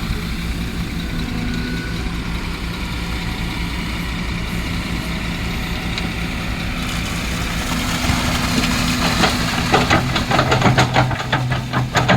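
Kobelco excavator's diesel engine running steadily at a low idle. About two-thirds of the way through it gets louder and works harder, with a rapid rattling clatter over a stronger low drone.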